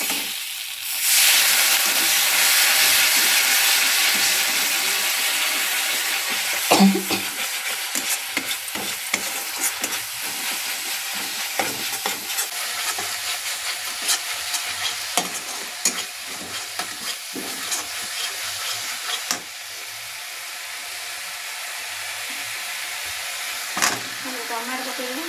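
Masala spice paste frying and sizzling in oil in a steel kadai while a metal spatula stirs it, scraping and tapping the pan. The sizzle swells sharply about a second in and slowly dies down; near the end chopped tomatoes drop into the pan.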